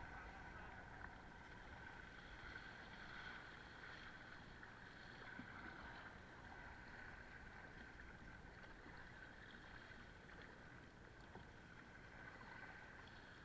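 Near silence: a faint, steady hiss of wind and water.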